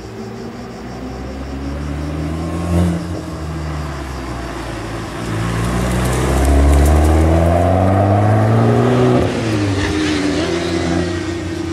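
Fiat 500 Abarth's turbocharged 1.4-litre four-cylinder through a titanium exhaust, driving by: the engine note climbs under acceleration to its loudest, then drops in pitch as the car passes and pulls away. A short sharp pop about three seconds in.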